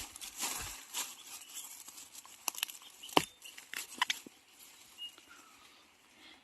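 Rustling through dry bamboo leaves and undergrowth while foraging for bamboo shoots, with a few sharp cracks around the middle, the loudest about three seconds in.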